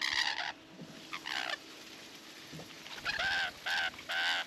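Bird calls: a short call at the start and another about a second in, then three calls in quick succession near the end.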